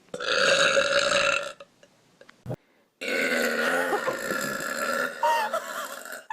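A person burping twice: a burp of about a second and a half, then, after a short gap broken by a click, a longer burp lasting about three seconds.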